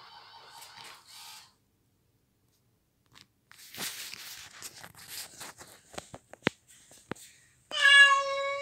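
Battery-powered plush toy puppy giving a loud electronic cry at one steady pitch near the end. Before it come a few seconds of soft scattered clicks and scuffs.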